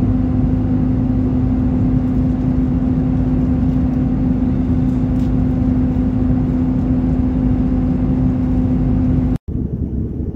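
Steady in-flight drone of an Airbus A330-300 airliner: a constant rush of air and engine noise with a steady low hum. It cuts off abruptly about nine seconds in and gives way to a rougher rumble.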